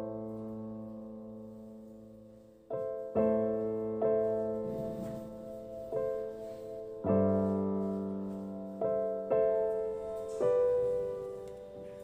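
Background music: slow solo piano, chords struck about every one to two seconds and left to ring and fade.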